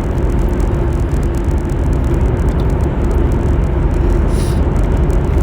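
Car cabin noise while driving: a steady rumble of road and engine noise with a faint steady hum.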